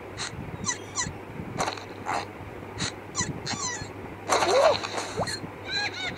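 Cartoon character voices, wordless: a string of short squeaks and chirps with small sound effects, then a loud yell about four seconds in.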